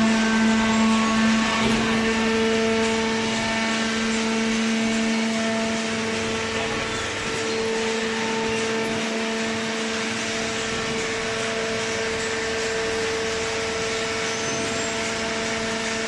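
Horizontal hydraulic cardboard baler's power unit running: a steady machine hum with a held tone over a broad mechanical hiss.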